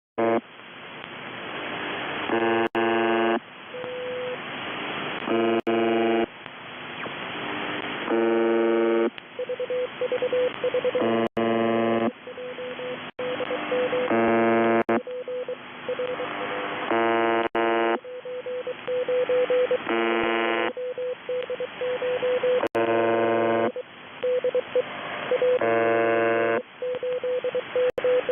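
UVB-76 'The Buzzer' shortwave time-signal station heard through a radio receiver: harsh buzz tones about a second long, every two to three seconds, over static hiss. Between the buzzes a single steady Morse code tone is keyed on and off, mostly in the second half.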